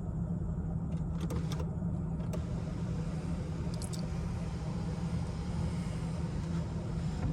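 Mercedes CL600 V12 idling steadily, with a few switch clicks in the first two seconds, then a small electric motor running for about five seconds as the power features are re-initialised after the battery went flat.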